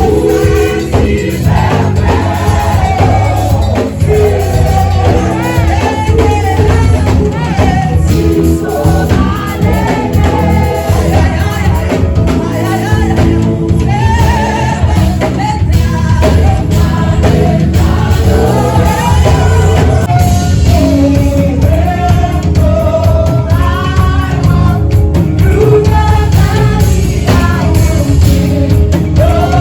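Gospel song playing: singing over instrumental backing.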